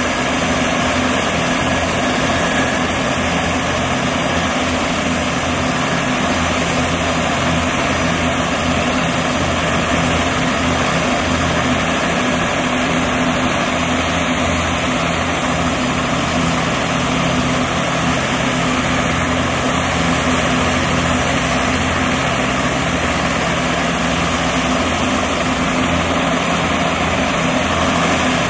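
Bell 206B-3 JetRanger III helicopters running on the ground with rotors turning. A steady high turbine whine sits over the rotor and engine noise, with no rise or fall.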